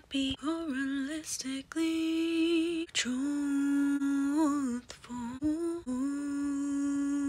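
A woman humming a slow tune, starting with a few short notes and then holding long, steady notes.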